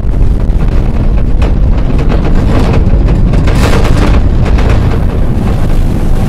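Experimental electronic sound piece: a loud, dense low rumble full of crackle, with a hissing swell that builds to a peak a little past the middle and fades.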